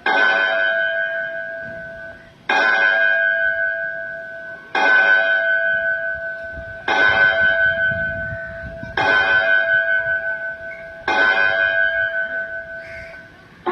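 Temple bell struck six times, about once every two seconds. Each stroke rings out in steady, wavering tones that fade before the next strike.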